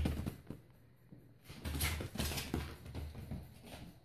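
Kittens pouncing, their paws thudding and scuffling on the floor and against the wall: a short burst at the start, then a longer flurry of scrabbling and thumps through the middle.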